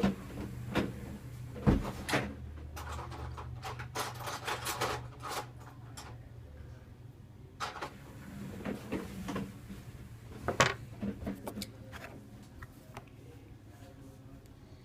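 Scattered knocks, clicks and light clatter of tools and small objects being handled on a workbench while a flat-tip tool is fetched, with a low steady hum under the first half.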